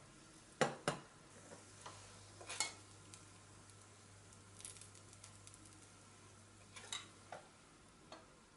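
A metal spoon clinks sharply a few times against a small copper pan and a porcelain plate while hot oil fried with ground red pepper is spooned out, over a faint sizzle of the oil. The two loudest clinks come about a second in.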